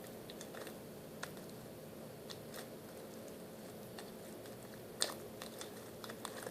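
Homemade Elmer's glue and borax slime being squished and kneaded by hand: scattered small sticky clicks and pops, one sharper about five seconds in, over a faint steady hum.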